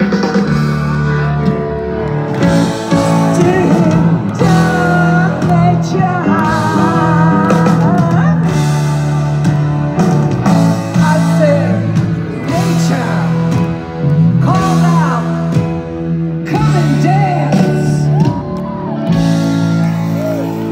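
A live rock band playing a song: sustained low notes shift every couple of seconds under a wavering, sliding lead melody.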